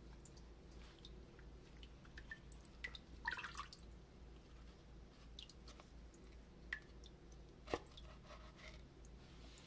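Water dripping from wet paper pulp draining in a wooden papermaking mould: scattered faint drips, with a short run of them about three seconds in and a sharper single drip near the end.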